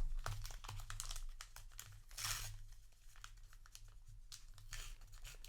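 Paper trading-card booster wrappers crinkling and cards being handled, a run of small clicks and rustles, with a longer, louder rustle of paper about two seconds in.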